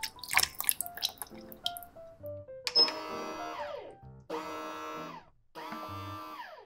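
Liquid pouring and dripping into a bread machine pan, then a short beep and the bread machine's kneading motor starting in on-off bursts, each burst winding down in pitch as it stops, with soft background music.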